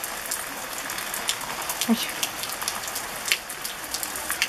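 Heavy rain falling on a wooden porch deck: a steady hiss with frequent sharp splats of single drops striking close by.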